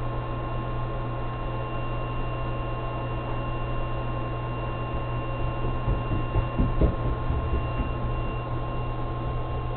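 Steady low electrical hum with a faint high whine, and a few soft low knocks about six to seven seconds in.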